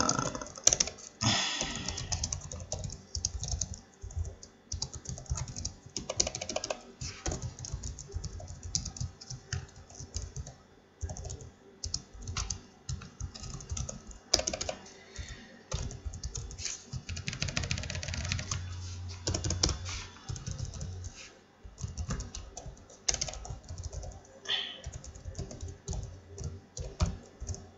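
Typing on a computer keyboard: a long, irregular run of key clicks with short pauses.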